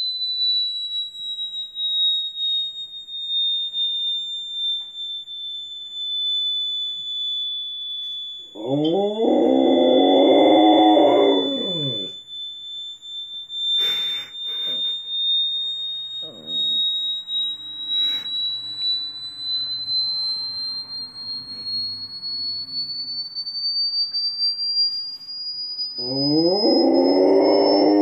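A steady high-pitched electronic tone played from the TV, slowly dipping and then rising in pitch, with a Rottweiler howling along to it twice: about nine seconds in for a few seconds, and again near the end.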